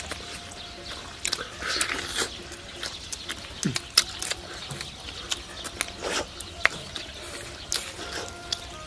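Close-up eating sounds of people biting into and chewing tender braised chicken by hand: wet chewing and lip smacks, heard as many short sharp clicks scattered irregularly throughout.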